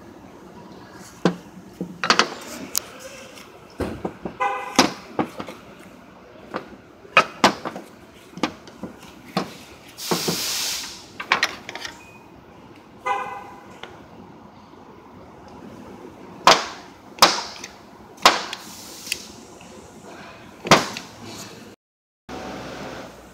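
Irregular metal clanks and knocks from hand work on a car's front suspension parts, some strikes ringing briefly like struck steel. A short hissing burst comes about ten seconds in.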